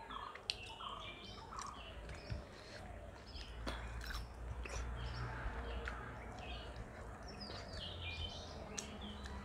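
Small birds chirping repeatedly in the background over a low rumble, with soft sounds of eating by hand: fingers working food on plates, and chewing.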